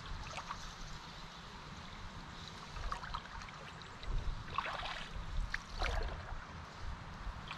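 Small river water running past a canoe, with clusters of splashing and dripping about three seconds in and again around five seconds.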